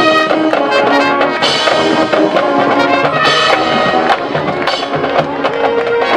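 A band's brass section, trumpets and trombones, playing loud held and moving chords, with percussion hits throughout.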